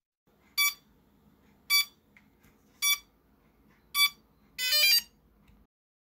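Electronic beeps: four short identical beeps about a second apart, then a longer, higher, wavering tone near the end.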